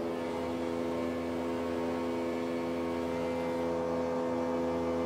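Steady machine hum made of several held tones over a low rumble.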